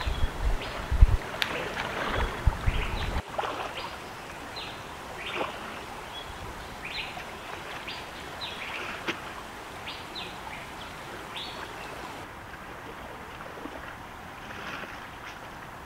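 River water splashing and sloshing as a person wades through it, louder with low thumps for about the first three seconds, then gentler lapping of water around a wicker basket held in the river. Short high chirps of small birds come through at intervals.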